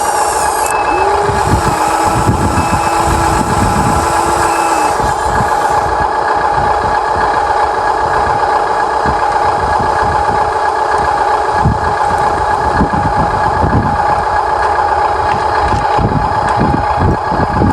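Electric drive motors and plastic gearboxes of a radio-controlled toy excavator whining steadily while it digs, with irregular knocks and scrapes. A few short high beeps sound in the first few seconds.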